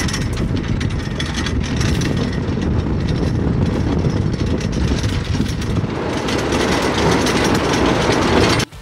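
Four-wheel drive travelling over a bumpy dirt track: a steady rumble of tyres and suspension with many small knocks and rattles, stopping abruptly near the end.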